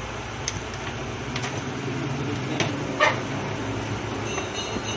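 Steady low mechanical hum with several light clicks and taps over it, the sharpest about three seconds in.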